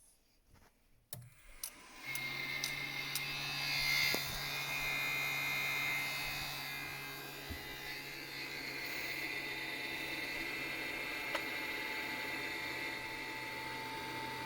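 A few clicks, then about two seconds in a 3D printer's part cooling fan starts running steadily with a high whine over a low hum. This is the fan the owner reports as faulty.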